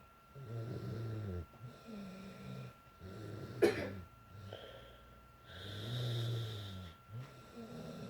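A girl snoring in her sleep, congested from a cold: rough, low snores on each breath, about five in a row roughly a second apart, with one brief sharp sound about halfway through that is the loudest moment.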